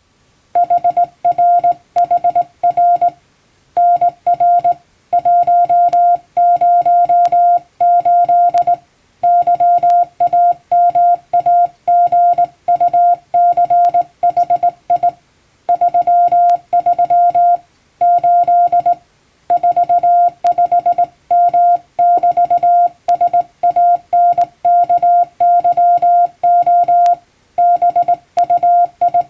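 Hand-sent Morse code (CW) in plain-language English: one steady mid-pitched tone keyed on and off in dots and dashes, with short breaks between words.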